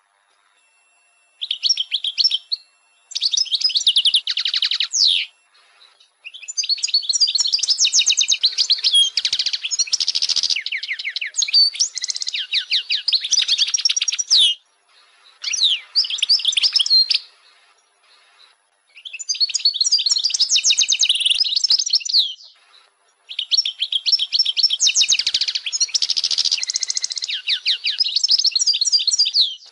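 European goldfinch singing: fast, high twittering phrases of trills and quick slurred notes, coming in bursts of a few seconds with short pauses between.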